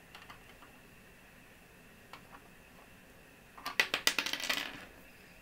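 Small plastic doll accessories clicking and clattering against the shelf of a plastic toy locker as they are set in place: a few faint taps, then a quick cluster of clicks about three and a half seconds in.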